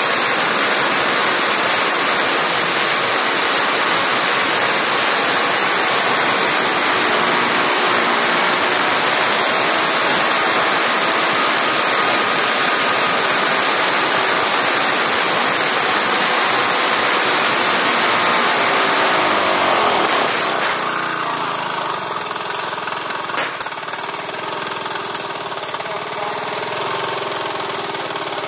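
Oxygen-fed Briggs & Stratton lawnmower engine, run with no throttle or choke butterfly, racing flat out. About twenty seconds in, its revs fall away and it runs on more quietly.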